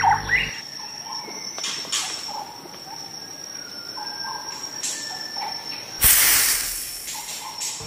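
Field ambience with a steady high-pitched insect drone, like crickets or cicadas, and a few faint short chirps. About six seconds in, a loud rush of noise lasts about a second and a half.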